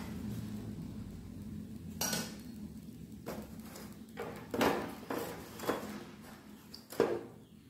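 Steel spatula clinking and scraping against a black iron kadai as the vegetables are turned: a series of irregular knocks and scrapes, the loudest near the end.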